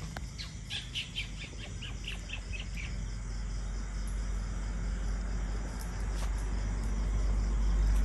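A quick run of about a dozen high chirps from a small animal in the first three seconds. A low vehicle rumble then grows steadily louder.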